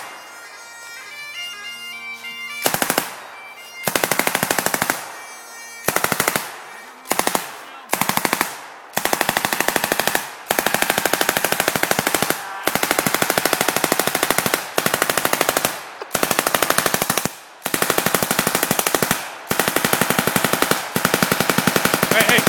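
Bagpipes playing steadily, then from about three seconds in, bursts of automatic rifle and machine-gun fire, each a second or two long, running together into almost continuous firing in the second half.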